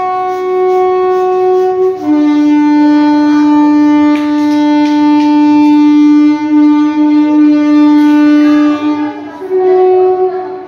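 A wind instrument holding long, steady, loud notes, most likely music laid over the video. One note changes to a lower one about two seconds in, and the first note returns near the end.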